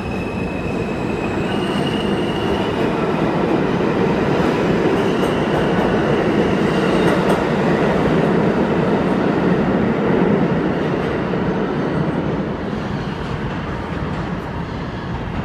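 R160A subway train pulling out: its traction motors whine in rising stepped tones for the first couple of seconds, then the wheels rumble steadily on the rails as it runs off into the tunnel. The rumble is loudest about halfway through and eases off near the end.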